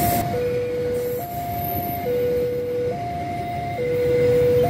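Railway level-crossing warning alarm sounding its two-tone electronic signal, alternating a higher and a lower note, each a little under a second. Beneath it is the rumble of passenger coaches rolling past on the rails.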